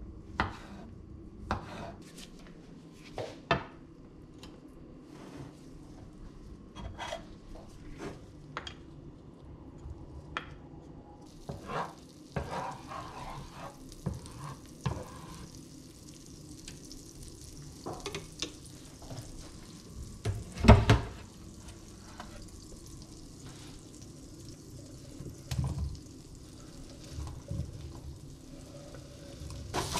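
A knife knocking on a wooden cutting board as cauliflower is cut, in separate strikes. About eleven seconds in, a frying pan starts sizzling steadily, with scattered knocks of utensils and one loud knock about two-thirds of the way through.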